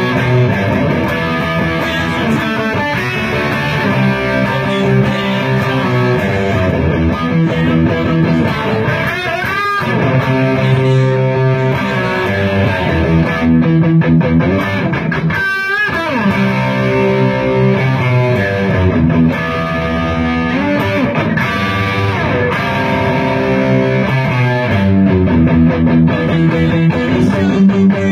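Instrumental music led by an electric guitar, with two quick pitch slides, about ten and sixteen seconds in.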